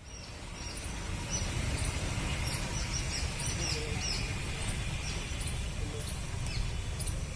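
Small birds chirping: short, high, downward-curving notes, irregularly about two a second, over a steady low rumble.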